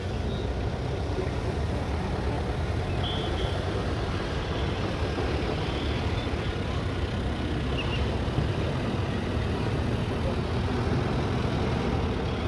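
Vintage open touring car's engine running with a steady low rumble as the car drives slowly past.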